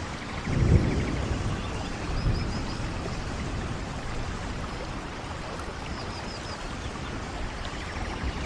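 Forest stream flowing steadily, with a short low rumble about a second in. Faint quick runs of high chirps come twice.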